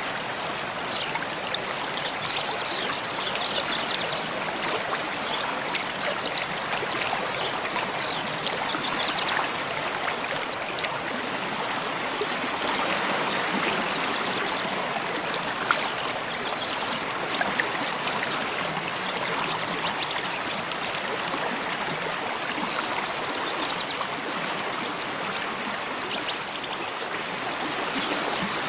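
Mountain stream flowing steadily, with a continuous rushing and trickling of water. Birds chirp briefly in short high calls now and then above it.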